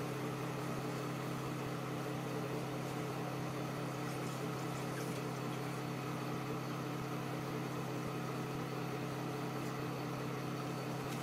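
A steady low hum that does not change.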